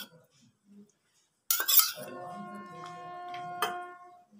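Stainless steel kitchenware clattering about one and a half seconds in, then ringing with several clear tones for about two seconds, with a second light tap near the end of the ring.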